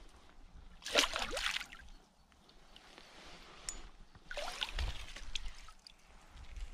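Water splashing in two short bursts about three seconds apart, from a fish at the surface as it is handled and released.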